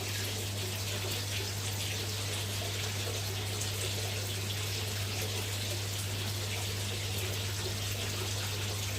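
Steady rush of water running into a pond, with a constant low hum underneath.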